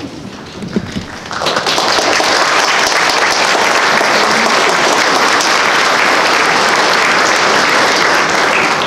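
Audience applauding at the end of a scene: a few scattered claps, swelling into full, steady applause about a second and a half in, then dying away near the end.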